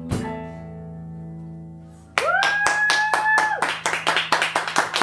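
The band's final chord on acoustic guitar and keyboard rings out and fades for about two seconds. Then the listeners break into clapping, with a high whooping cheer over the first second or so.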